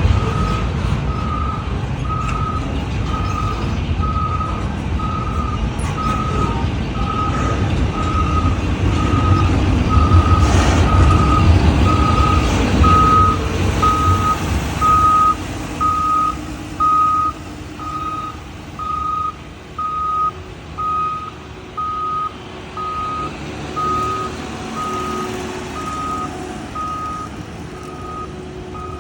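A vehicle's reversing alarm beeping steadily, about once a second, on one high tone. Under it, the low rumble of a passing freight train is heavy at first and dies away about halfway through, leaving the beeps standing out.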